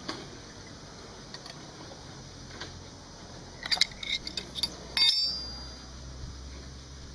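Small metal tools or parts clinking and rattling in a quick run of sharp clicks, then a louder metallic clank with a short high ring about five seconds in. A faint low hum sets in after the clank.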